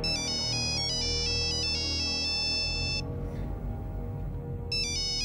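Mobile phone ringtone: a short electronic beeping melody that plays for about three seconds, stops, and starts again near the end, over low, steady background music.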